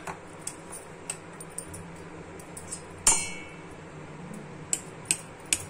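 Small clicks and clinks of a metal spoon against steel spice cups and a steel bowl, with one louder, ringing clink about three seconds in.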